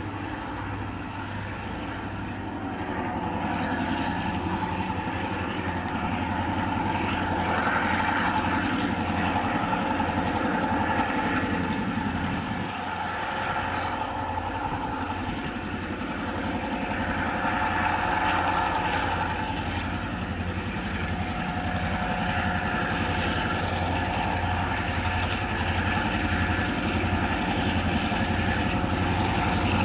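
Two TasRail diesel locomotives, 2051 and 2054, working at the head of a freight train as it approaches, their engines giving a steady, low, pulsing drone that gets louder a few seconds in.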